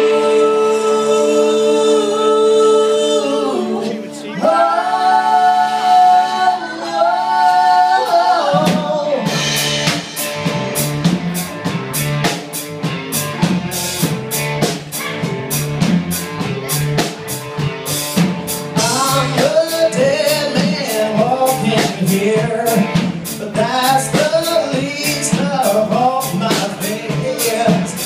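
A live male and female vocal duo singing in harmony: they hold two long notes together, then at about nine seconds a drum kit and band come in with a steady beat under the singing.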